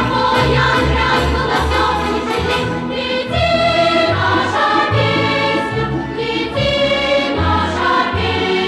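Background song: a choir singing over instrumental backing with a steady bass line.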